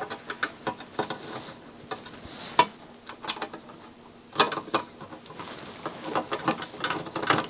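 Screwdriver turning a long screw into the CD player's thin metal chassis, with irregular small clicks and scrapes of metal on metal. The sharpest clicks come about two and a half and four and a half seconds in.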